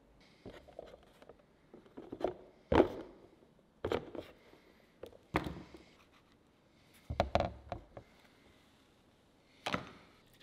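A crumpled tube of oil paint being squeezed and handled over a palette: a series of irregular crackles and knocks, the loudest a little under three seconds in.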